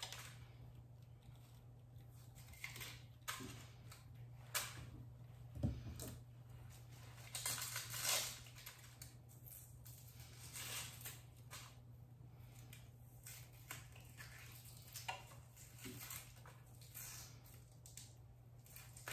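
Dry, papery skin being peeled off a sweet onion by hand: scattered faint crinkles and crackles, with one soft knock about six seconds in, over a low steady hum.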